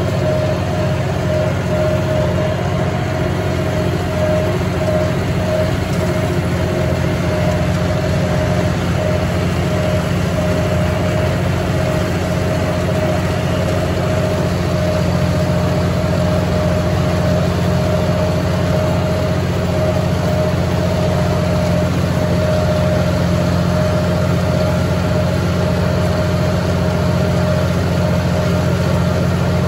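John Deere 5045E tractor's three-cylinder diesel engine running steadily at working speed while pulling and driving a John Deere MX8 rotary cutter through tall growth. A steady whine runs over the low engine drone.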